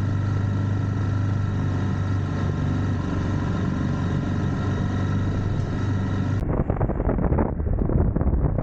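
Motorcycle engine running steadily with an even hum. About six seconds in, it cuts to rough, gusting wind noise on the microphone as the bike is ridden.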